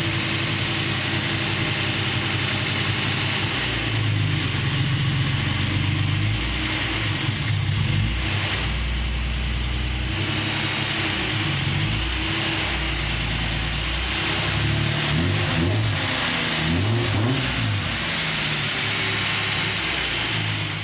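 Datsun 280ZX's straight-six engine idling steadily as it warms up on its first run after a cylinder head rebuild, its pitch wavering a little in the latter part. The valves are a bit loud, having been adjusted cold rather than hot.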